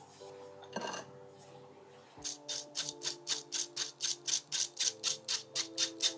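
Handheld fine-mesh metal sieve shaken and tapped to sift confectioners' sugar into a glass bowl: a steady run of quick, crisp taps, about four to five a second, starting about two seconds in.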